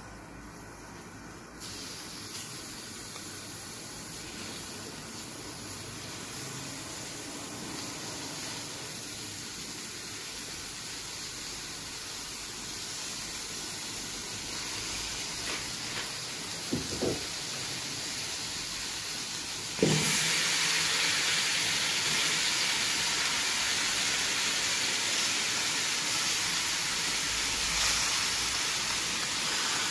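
Fat and meat pieces sizzling in a hot kazan: a steady hiss that gets louder about two seconds in and jumps louder again about twenty seconds in as more pieces go in. A few light knocks come shortly before the second rise.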